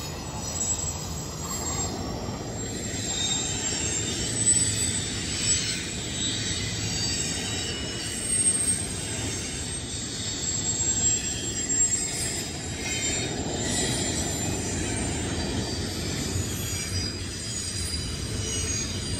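Double-stack intermodal freight cars rolling past: a steady rumble of steel wheels on rail, with high-pitched wheel squeal that swells and fades as the cars round the curve.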